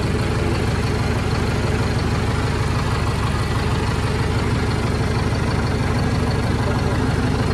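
Sonalika Tiger DI 65 4x4 tractor's common-rail (CRDS) diesel engine idling steadily, with no change in speed.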